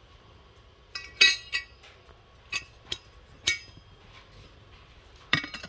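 Stainless-steel vacuum flasks and their metal lids clinking as they are handled: a handful of sharp metallic clinks with a brief ring, the loudest about a second in, and a last cluster near the end.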